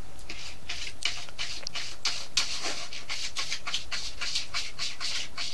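Kittens sucking on a person's finger, a quick regular rhythm of sucking sounds, about four or five a second.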